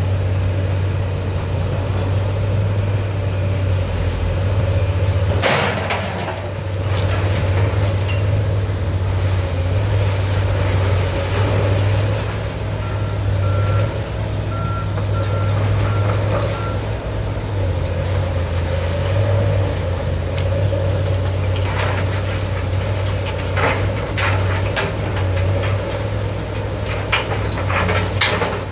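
Heavy demolition machinery's diesel engine running steadily, with crashes and knocks of breaking debris about five seconds in and again over the last several seconds. A reversing alarm beeps five times midway.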